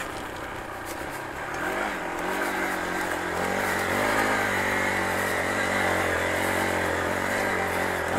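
Motorcycle engine running, its pitch and loudness rising over the first few seconds, then holding steady.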